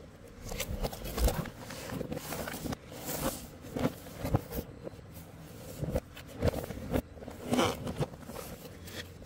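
Cardboard box of an LED light kit being handled: the lid folded shut and the box shifted by hand, giving a string of irregular scrapes, rustles and knocks.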